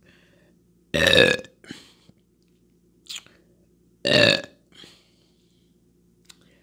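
A woman burping loudly twice, about a second in and again about four seconds in, with a few fainter short sounds between the burps.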